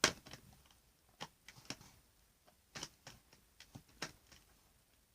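Scattered small clicks, taps and crinkles of a toy doll being worked out of its glued cardboard and plastic packaging, irregular, with the sharpest one right at the start.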